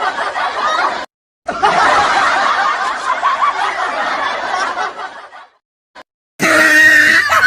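Laughter sound-effect clips: a stretch of laughing cut off abruptly about a second in, then after a brief gap another longer stretch of laughter that fades out around five seconds in. Near the end a different, pitched sound clip starts suddenly.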